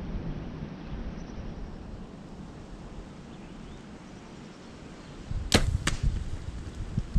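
Compound bow fired: a sharp snap of the released string about five and a half seconds in, then a second sharp crack about a third of a second later. Steady wind in the trees before, and rustling after.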